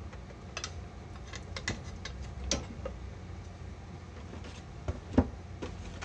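Light, irregular ticks and clicks over a low steady hum, with a sharper knock about five seconds in.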